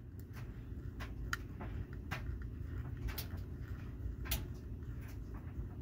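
Small irregular clicks of a precision screwdriver turning a screw out of a diecast model truck's plastic base, with light handling of the plastic chassis.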